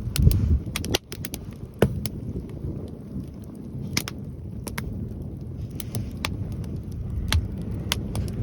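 Wood campfire crackling with scattered sharp pops, over wind buffeting the microphone in gusts, strongest just after the start.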